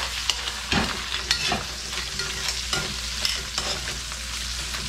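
Dungeness crab pieces sizzling in butter and oil in a hot stainless steel wok, with tongs clicking and scraping against the pan several times as the crab is tossed.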